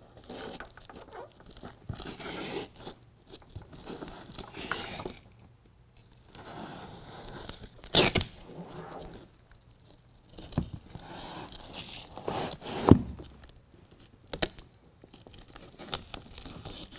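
Long hook-and-loop (Velcro) strip being laid along and pressed onto the edge of a bed-liner tailgate piece: irregular tearing and rustling as it is stuck down, with a couple of sharp taps about eight and thirteen seconds in.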